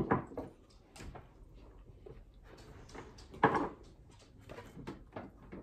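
Knives and forks clinking and scraping on dinner plates, in short scattered clicks and knocks, with a louder clatter about three and a half seconds in.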